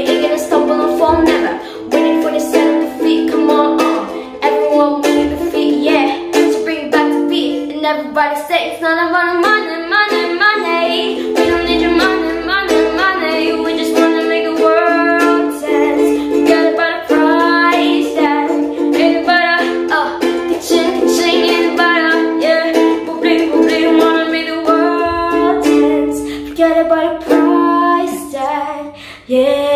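Ukulele strummed in a steady rhythm through the chords F, A minor, D minor and B flat, with a girl's voice singing the melody over it.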